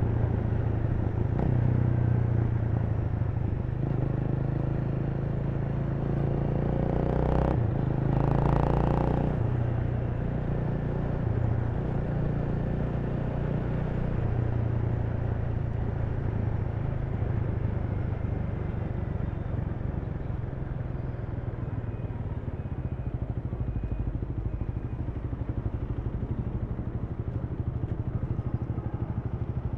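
Honda Rebel 300's single-cylinder engine running as the motorcycle rides through city traffic, its note rising and falling with the throttle. About seven to nine seconds in, a brief louder rush of noise passes over it.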